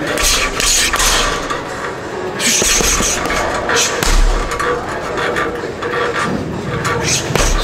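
Gloved punches landing on a teardrop heavy bag: a run of sharp thuds and slaps at an uneven pace, some in quick flurries.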